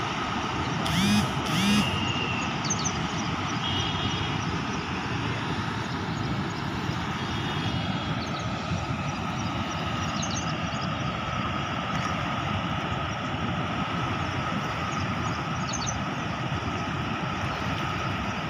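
Steady roar and rush of floodwater pouring through the open spillway gates of a dam. Two short, louder pitched sounds come about a second in.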